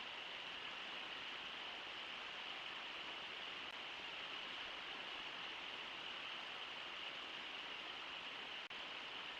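Steady rush of the Brooks River pouring over Brooks Falls: an even, unbroken hiss of falling water, with a momentary dropout less than a second before the end.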